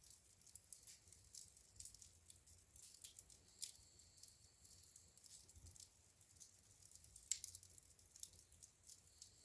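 Wood fire in a fireplace crackling faintly, with irregular small pops and one sharper pop about three-quarters of the way through.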